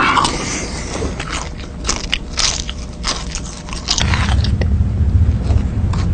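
A person crunching and chewing crisp food loudly, with a quick string of sharp crunches. About four seconds in, a steady low rumble comes in beneath it.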